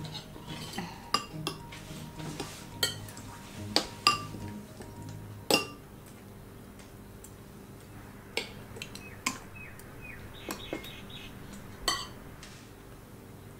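Metal spoons and forks clinking and scraping against ceramic bowls and plates while people eat: a dozen or so irregular clinks, the sharpest in the first six seconds.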